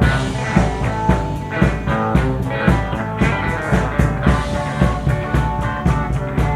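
Live blues-rock band playing an instrumental passage with no singing: electric guitar and bass over drums keeping a steady beat.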